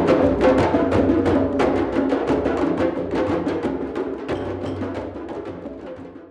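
Drum circle of many drums and percussion instruments playing a dense, fast, steady rhythm together, fading out over the last two seconds.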